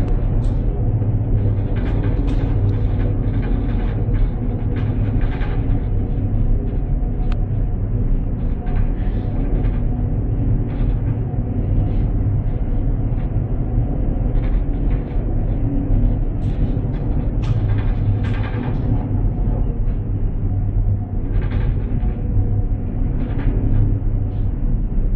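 Steady heavy rumble of a container ship in a storm at sea, wind and the ship's machinery together, with brief hissing gusts of wind and spray every few seconds.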